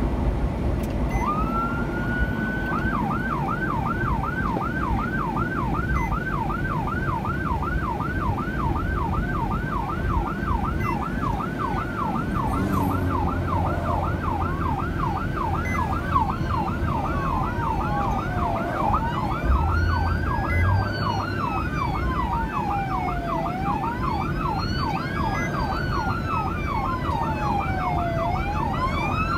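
Police escort sirens: one starts about a second in and settles into a fast yelp, and a slower rising-and-falling wail joins about halfway, the two sounding together. Underneath is steady car road noise, heard from inside a following car.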